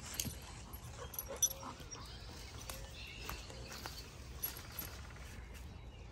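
Footsteps and a yellow Labrador-type dog rustling and crunching through dry fallen leaves, with scattered crackles of leaves and twigs and a few brief faint dog whines.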